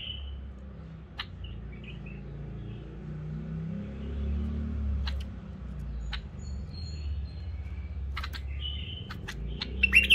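Caged white-eared bulbul giving short chirps, then a louder burst of chirping near the end. A few sharp clicks fall in between as the bird moves about its bamboo cage, over a steady low background rumble.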